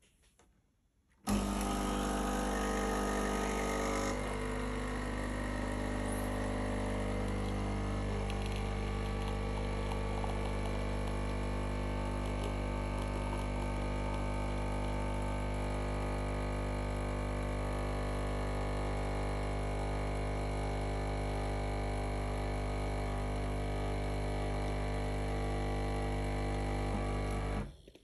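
Swan SK22110GRN retro pump espresso machine's pump running as it pulls a shot of espresso: a steady hum that starts abruptly about a second in, changes in tone at about four seconds, and cuts off just before the end.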